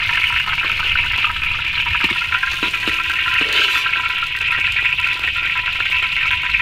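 Fish pieces frying in hot oil in a steel wok: a steady sizzle.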